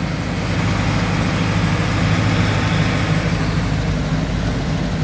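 Volkswagen Kombi van's engine running steadily on the move, heard from inside the cabin as a low, even hum under road noise.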